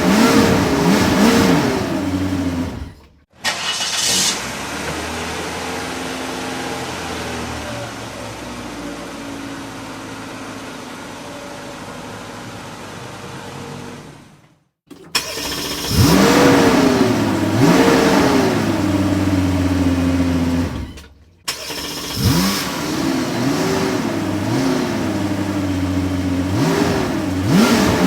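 Car engine revving in repeated blips, the pitch rising and falling with each one, in separate takes divided by short gaps. Between the revving takes there is a longer, quieter stretch of steady running.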